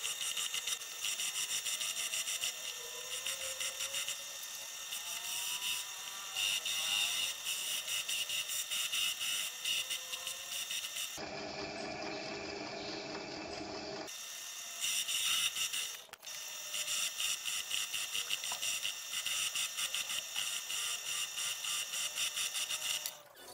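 Pillar drill press running with a small metal part pressed against the tool spinning in its chuck: a steady high-pitched scraping buzz as rust is taken off the part. The sound changes briefly about eleven seconds in, then the scraping resumes.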